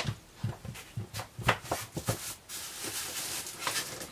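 Toy packaging being handled in a cardboard box: irregular knocks and taps, then a steady rustle over the last second or so.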